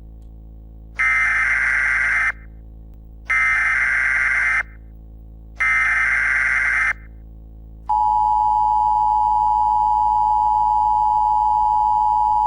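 Emergency Alert System header: three identical bursts of warbling data tones, each a little over a second long, then, about eight seconds in, the long steady EAS attention tone. A low steady hum runs underneath.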